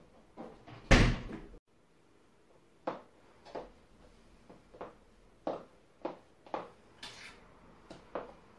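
A door bangs shut about a second in; this is the loudest sound. After that comes high-heeled shoes clicking step by step across a laminate floor.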